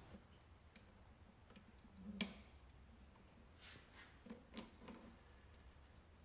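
Near silence with a few faint clicks and taps as thread is fed through the guides of a Sailrite LSZ-1 sewing machine: one soft tap about two seconds in, then a small cluster of light clicks.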